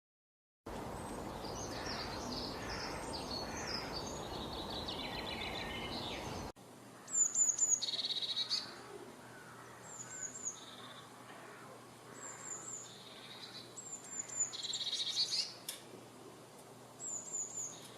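Birds calling: about six seconds of busy, overlapping chirping over a noisy background. After a sudden cut, a single bird repeats a short high call of three quick falling chirps every couple of seconds.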